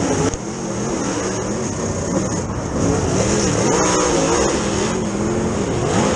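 Super late model dirt race car's V8 engine heard from inside the cockpit, its pitch rising and falling as the throttle comes on and off. The level drops just after the start and climbs back from about halfway.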